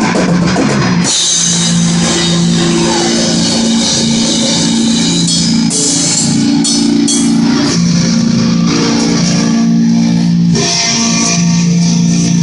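Rock music with guitar playing held chords over a drum kit with cymbals.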